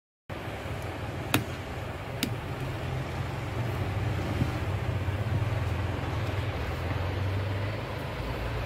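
A steady low rumble of background noise, like road traffic, with two sharp clicks about a second and two seconds in as the UPS's sealed lead-acid batteries and their push-on terminal leads are handled.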